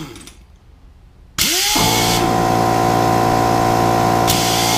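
Pneumatic impact wrench run on a small air compressor's air, starting suddenly about a second and a half in, spinning up quickly and then running at a steady pitch with a hiss of exhaust air.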